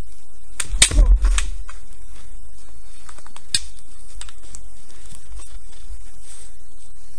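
Bamboo kendo shinai knocking in sparring: a quick cluster of sharp clacks about a second in, then a single clack near the middle and a few lighter taps.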